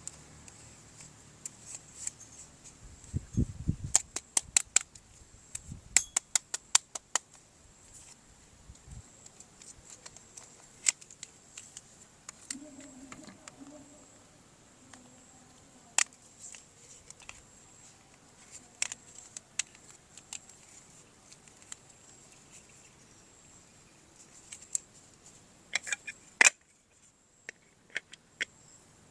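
Hands handling plastic toy parts and packaging: scattered sharp clicks and snaps, with two quick runs of clicks a few seconds in and a few low thumps.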